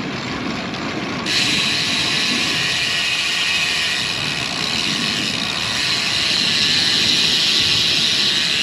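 Road bike's rear-hub freewheel buzzing while the rider coasts. The high buzz starts suddenly about a second in and keeps up steadily, over a lower rush of wind and tyre noise.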